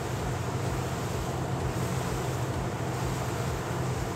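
Honda outboard engine running steadily at about 3,000 rpm as the boat moves along, with a constant hum under a hiss of wind and water.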